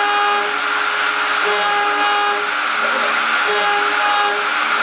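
CNC router spindle running at high speed while its end mill cuts 6061 aluminium, a steady whine and hiss with a cutting tone that comes back about every two seconds as the tool loops around the pocket.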